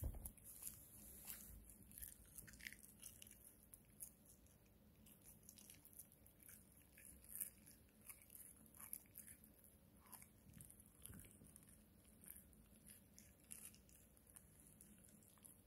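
Small black-and-tan spaniel gnawing on a long chew stick held in a hand: faint, irregular clicks and crunches of teeth working the stick.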